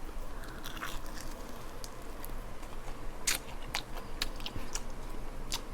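Close-up eating sounds: chewing with scattered wet mouth clicks, over a steady low hum.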